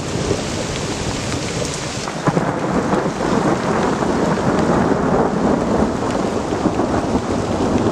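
Heavy thunderstorm rain pouring down and drumming on a tarp shelter, with thunder rumbling. The downpour grows louder about two seconds in.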